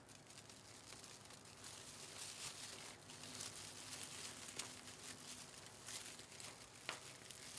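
Faint rustling and crinkling of fabric mesh ruffles being handled and pressed down onto a wire wreath form, with a couple of light ticks.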